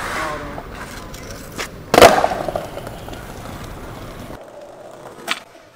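Skateboard: one loud sharp crack of the board about two seconds in, followed by a rushing wheel-and-board noise that fades and then stops suddenly.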